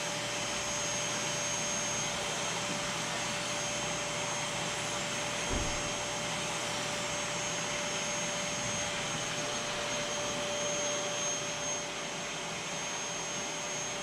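Canister vacuum cleaner running steadily on carpet, an even motor-and-suction hiss with a steady hum in it. A brief knock about halfway through.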